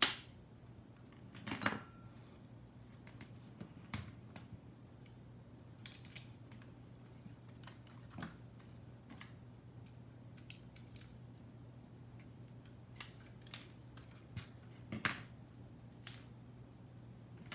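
Scattered clicks, taps and knocks from handling the plastic case of a FrSky X-Lite radio transmitter and small tools while it is being screwed back together, with a few louder knocks just after the start, under two seconds in, and near the end. A steady low hum sits underneath.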